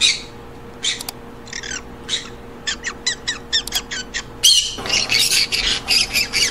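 Green-cheeked conures calling: a sharp squawk at the very start, then a string of short, quick calls, breaking into dense, overlapping squawking from about four and a half seconds in.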